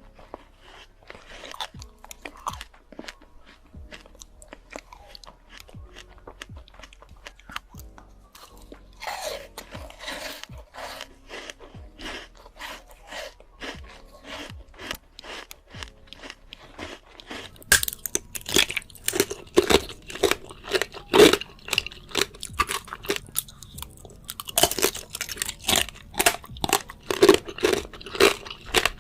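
Close-miked chewing of crunchy fresh fruit: rapid crisp crunches, quieter at first and louder and denser from a little past halfway, with a short pause before a last loud bout.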